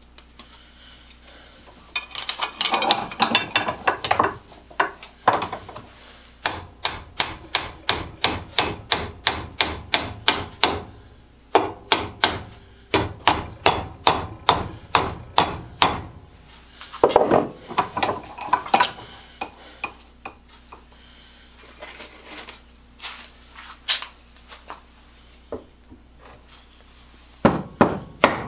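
Hammer taps driving a glue-coated wooden dowel into a drilled hang hole in the wooden handle of a North Brothers 1530A X egg beater drill, to plug the hole. The taps come in quick runs of about three or four a second, broken by pauses and slower single strikes. There are a couple of seconds of rubbing and knocking before the first run.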